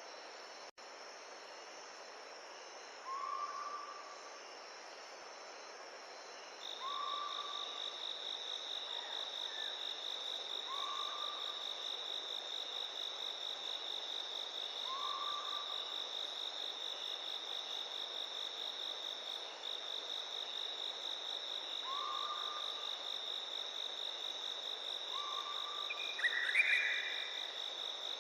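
Crickets or other insects trilling in one steady high-pitched note, coming in about a quarter of the way through, over a steady hiss of running water. A short, low call repeats every three to four seconds, and a bird gives a couple of chirps near the end.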